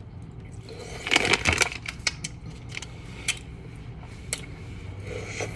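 Frozen ice pop being bitten and chewed close to the microphone. A dense burst of crunching comes about a second in, followed by scattered sharp crackles of ice.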